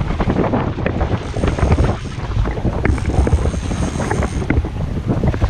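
Wind buffeting the microphone aboard a moving boat at sea, a steady rumble with the rush of water alongside. A faint high whine sounds twice, briefly about a second in and then for about a second and a half past the middle.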